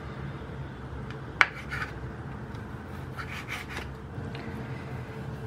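Kitchen knife slicing sausages into rounds on a bamboo cutting board: soft cutting strokes, each ending with the blade on the wood, and one sharper knock of the blade against the board about a second and a half in.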